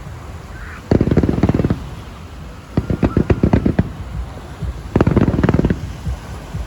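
Fireworks going off in three rapid strings of sharp bangs, each under a second long, about two seconds apart.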